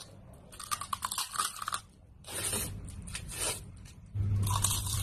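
Close-miked eating sounds: bites, crunching and chewing in several short bursts. A low steady hum comes in near the end.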